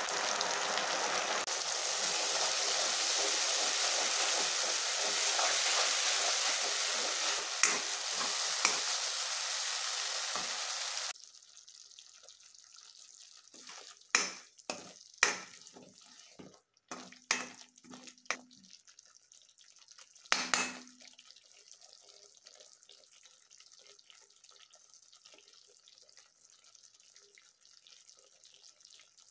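Ground masala paste hitting hot oil in a kadai: a loud, steady sizzling that cuts off abruptly about eleven seconds in. After it a spoon stirs the paste, knocking and scraping against the pan in several sharp clinks, a couple of them ringing briefly.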